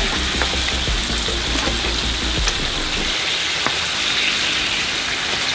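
Ground beef and lamb koobideh kabobs sizzling steadily in a hot non-stick frying pan, with a few light taps of wooden spatulas against the pan.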